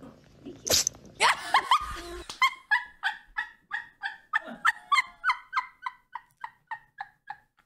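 A short sharp burst about a second in, then a woman's long run of helpless laughter: rhythmic breathy pulses, about two to three a second, slowly fading.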